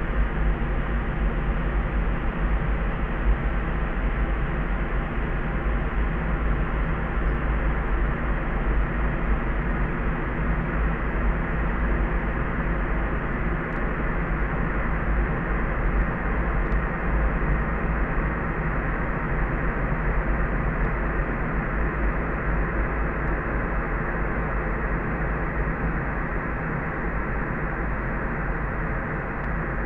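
Steady layered sleep noise: soft pink-type noise, heaviest in the deep bass and dark-toned, with no highs above about 4 kHz and no change throughout.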